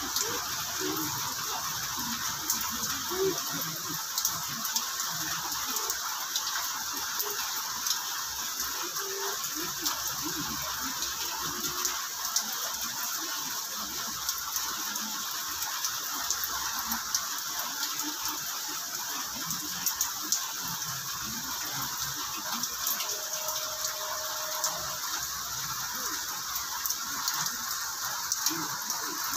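Steady rain falling, with many sharp clicks of drops striking close by.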